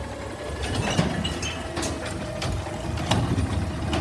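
Automated side-loader garbage truck's engine running at idle, with a faint steady whine and several sharp knocks.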